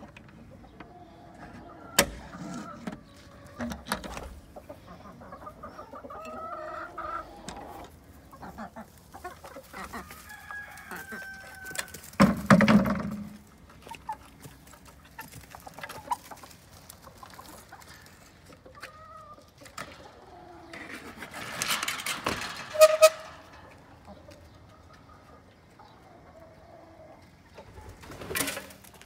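Chickens clucking, with a few sharp metal clicks of a padlock and latch early on and several louder rattles and bangs of the wooden coop door being opened.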